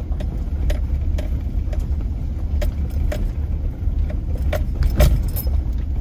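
Four-wheel-drive vehicle driving over a rough woods road, heard from inside the cab: a steady low rumble with frequent small rattles and knocks as it jolts, the loudest a clatter about five seconds in.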